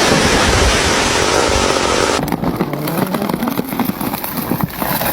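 Chainsaw engine running loud, with an abrupt change about two seconds in to a lower, steadier engine note with scattered clicks.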